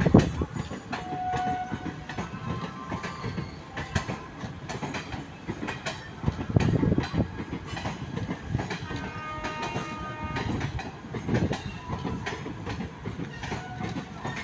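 Indian Railways express passenger coaches rolling past close by: a steady rumble of wheels on rail with irregular clicks and clanks as the wheels run over the rail joints.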